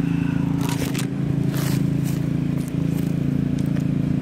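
Scraping and crackling handling noise from a phone being moved and rubbed against the microphone, in several short strokes, over a steady low hum.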